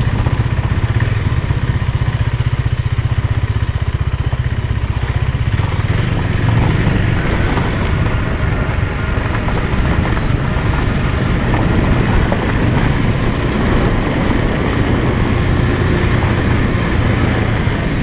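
KTM 390's single-cylinder engine running as the motorcycle rides along, a steady loud rumble throughout.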